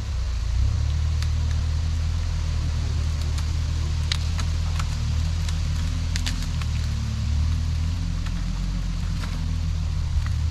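Hägglunds Bv206 tracked carrier's engine running steadily: an even, low rumble, with scattered light clicks and crackles over it.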